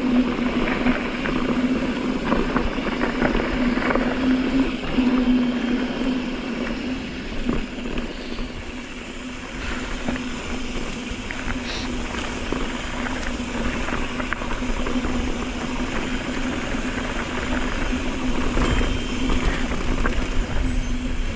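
Mountain bike rolling fast downhill on a dirt fire road: tyre and trail noise with a steady buzz throughout and scattered short clicks and rattles.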